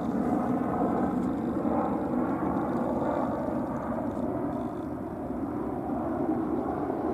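Helicopter flying overhead: a steady rotor-and-engine drone that dips slightly about halfway through, then swells again toward the end.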